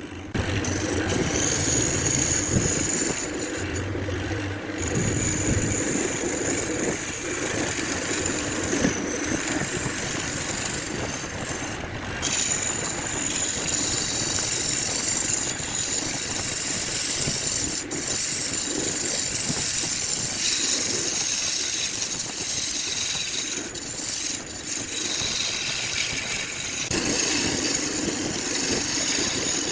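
A woodworking machine running steadily while wood is worked, giving a continuous noise with a high whine that fades in and out.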